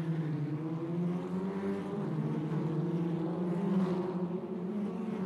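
Racing car engine running at speed, a steady drone that wavers slightly in pitch, from an open-wheeled front-engined Grand Prix car of the 1950s.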